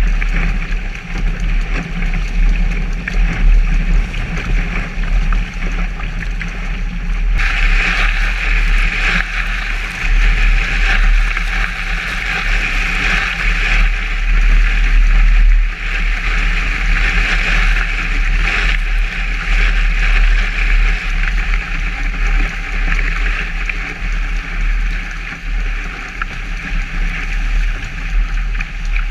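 Water rushing and hissing along a Hobie 16 catamaran's hull as it sails fast, with spray peeling off the bow, over a heavy low rumble of wind buffeting the microphone. The spray hiss grows louder about seven seconds in and stays up as the boat picks up speed.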